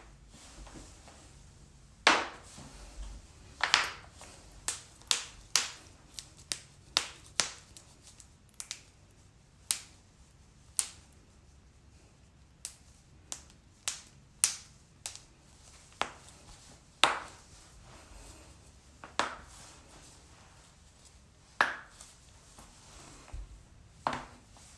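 Body joints cracking: a long, irregular series of sharp pops, some much louder than others.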